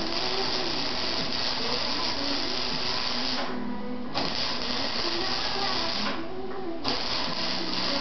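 Flux-core wire-feed welder arc crackling and hissing as a bead is run, stopping twice for under a second, about three and a half and six seconds in, before the arc is struck again.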